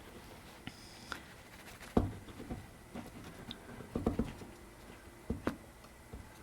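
A few light knocks and taps as the wooden chair part and glue bottle are handled while glue is run along a split: single knocks about two seconds in and near the end, and a quick cluster of taps about four seconds in.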